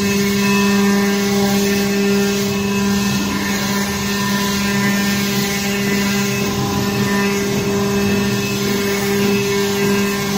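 Double-head CNC stone carving machine running, its two spindles cutting wet marble blocks: a steady pitched hum with a constant tone that holds unchanged.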